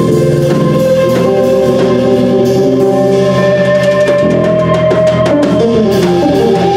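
Live band playing: a drum kit keeping time under electric bass and guitar, with long held notes over the beat.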